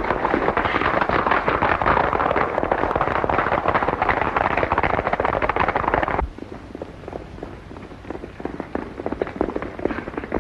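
Horses galloping, a dense clatter of hoofbeats that drops suddenly about six seconds in to quieter, more widely spaced hoofbeats.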